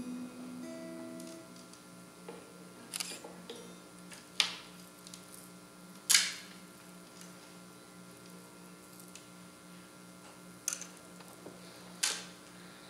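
Acoustic guitar notes ringing out and fading over the first second and a half, then a steady low hum broken by five sharp clicks spread across the rest, the loudest about six seconds in.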